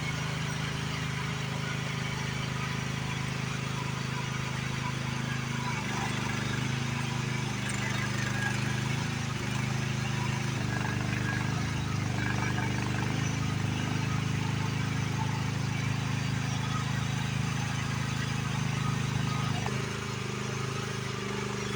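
Excavator engine running steadily, its pitch stepping up and down a few times as the machine works against the shed siding.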